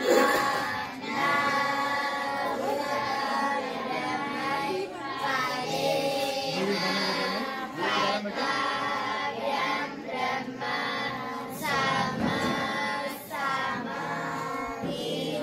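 A song with high, child-like singing voices over musical accompaniment, playing steadily.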